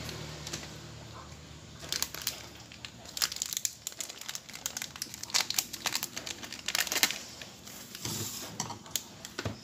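Plastic drink-mix sachet crinkling and crackling in quick irregular clusters as it is handled and emptied into a stainless steel mixing bowl.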